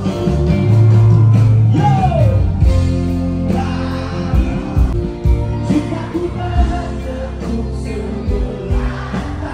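A rock band playing live with a singer, loud, with a sliding note about two seconds in.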